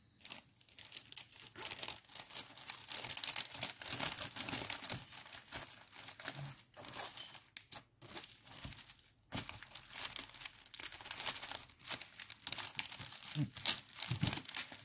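Packaging crinkling and rustling as it is handled, in irregular crackly bursts with a few brief pauses.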